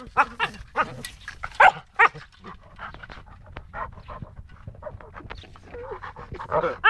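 Dogs vocalising at play: a run of short, pitched whines and yips in the first two seconds, quieter sounds for a few seconds, then more calls near the end. This is the puppies' playful 'talk' while wrestling, not aggression.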